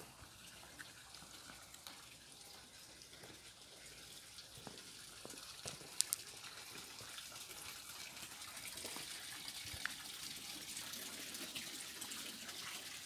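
Water running and splashing steadily from a stone wall fountain, growing louder in the second half, with one sharp click about six seconds in.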